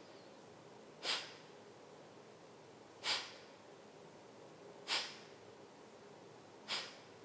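A woman's forceful nasal exhales in slow Kapalbhati (skull shining breath) pranayama: four short, sharp puffs of air through the nose, about two seconds apart, each a forced exhale with the belly snapping in, with soft passive inhales between.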